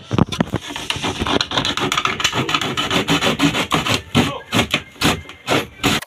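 Hand saw cutting through wooden wall planks in quick back-and-forth strokes, with rasping and knocking as the blade works in the gap.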